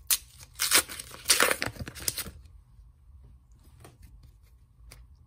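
A trading-card pack wrapper being torn open and crinkled in a few loud bursts over about two seconds, followed by a few faint clicks as the cards inside are handled.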